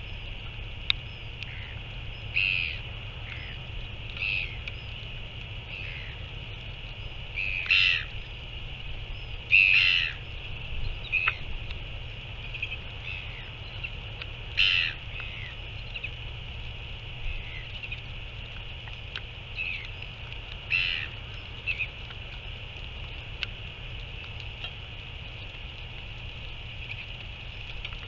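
Short, harsh bird calls repeated at irregular intervals of a second or more, loudest about eight and ten seconds in, over a steady high hiss and a low wind rumble.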